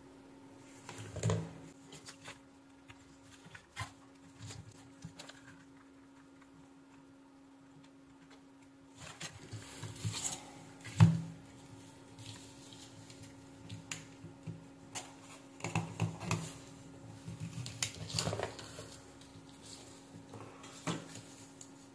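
Workbench handling noise: scattered light clicks and knocks as a switch-mode power-supply circuit board and multimeter test probes are moved about on the bench, the loudest knock about 11 seconds in. A faint steady hum runs underneath.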